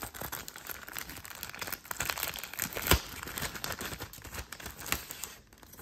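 Clear plastic bag crinkling and rustling as a paper instruction manual is worked out of it: a dense run of fine crackles, with one sharper crack about three seconds in.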